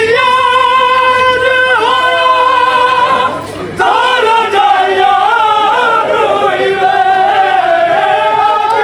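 A Shia mourning lament (nauha) sung without instruments, in long held notes that swell and waver. There is a short break about three and a half seconds in before the line goes on.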